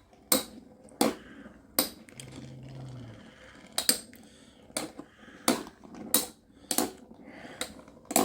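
Lightning L-Drago and Fang Leon Beyblade spinning tops clashing in a stadium: a string of sharp, irregular clacks, roughly one every half second to second, as they hit each other and the stadium wall.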